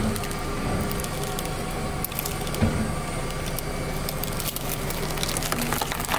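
Wooden toothpicks snapping and splintering as a car tyre rolls slowly over cucumbers skewered with them, squashing the cucumbers. The cracks come thicker in the second half, over the steady low hum of the car's idling engine.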